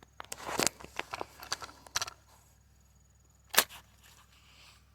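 Clicks and rattles of a single-shot break-action 12-gauge shotgun being handled and loaded with a .44 Magnum round in its adapter, then one louder sharp metallic snap about three and a half seconds in.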